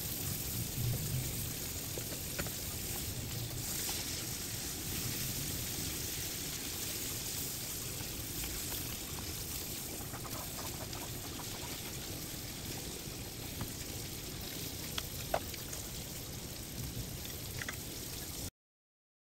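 Beef cubes and marrow bones sizzling in oil in a nonstick frying pan, with a few light taps of the silicone spatula against the pan. The sizzle cuts off abruptly near the end.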